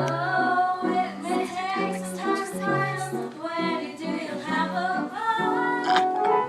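Voices singing a number from a stage musical, with instrumental accompaniment.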